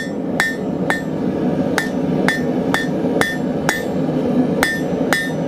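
Blacksmith's hand hammer striking a half-inch square steel bar on the anvil, drawing out a taper. There are nine blows at roughly two a second with one short pause, and each blow gives a brief metallic ring.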